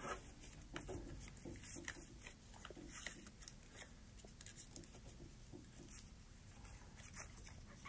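A sheet of paper being folded by hand into a petal fold: faint rustling with scattered soft crinkles and ticks as the paper is creased.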